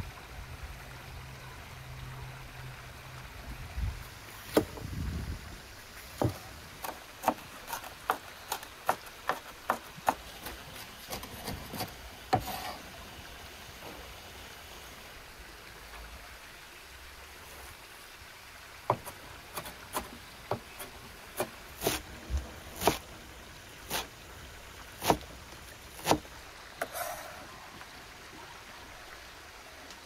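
Kitchen knife chopping fresh green onions and herbs on a wooden cutting board: sharp knocks of the blade on the board, about two a second, in two runs with a pause between.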